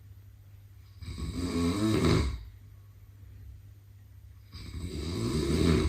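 A sleeping person snoring: two long snores, each about a second and a half and growing louder, roughly three and a half seconds apart.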